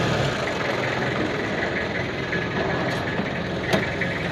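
Pickup truck engine idling steadily close by, with two faint clicks about three seconds in.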